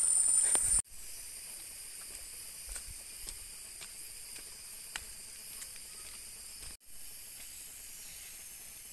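Rainforest insects buzzing in steady high-pitched tones, loud for the first second, then dropping abruptly to a fainter level with a brief break about two-thirds through. A few faint ticks are scattered through it.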